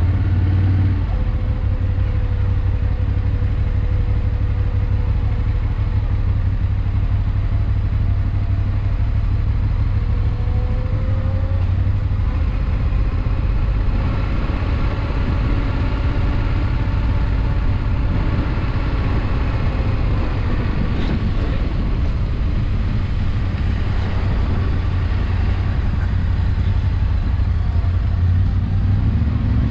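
Yamaha Ténéré 700 parallel-twin engine running steadily as the motorcycle is ridden, with a deep, constant rumble and a faint engine tone that rises a little near the middle.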